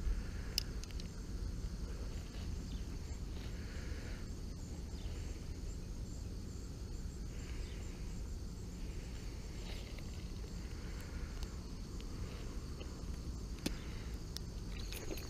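Outdoor ambience of insects chirring steadily at a high pitch over a low wind rumble, with a few small sharp clicks.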